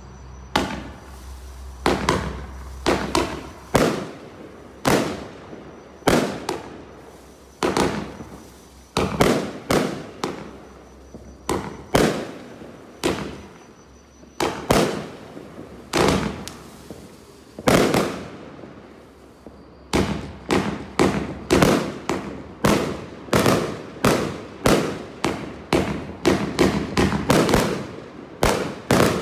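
Brothers 'Entertainer' multi-shot firework firing shot after shot, each a sharp bang that dies away quickly. The shots come about one a second at first, then quicken to about two a second for the last third.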